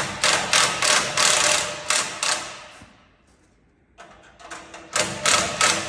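Impact wrench hammering in two bursts on a bolt: a run of rapid rattling blows for about two and a half seconds, a pause, then a second burst starting about four seconds in.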